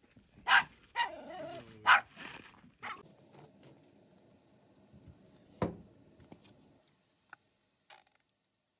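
A husky barking three times in quick succession, with a wavering whine between the barks. After that only faint noise and a single knock about halfway through.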